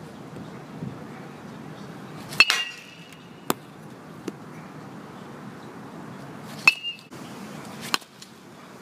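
Metal baseball bat hitting pitched balls twice, each contact a sharp ping with a short metallic ring, about four seconds apart. A single sharp click follows about a second after each hit.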